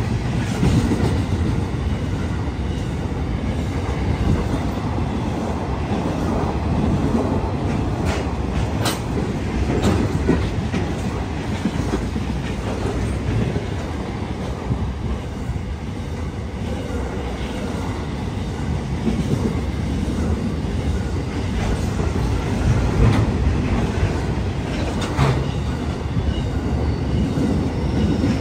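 Empty container flat wagons of a freight train rolling past: a steady rumble of steel wheels on the rails, with a few sharp clicks as the wheels cross rail joints.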